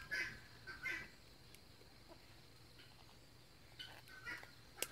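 Faint calls of farmyard fowl: a few short calls near the start and a few more about four seconds in, over a quiet low hum. A sharp click comes just before the end.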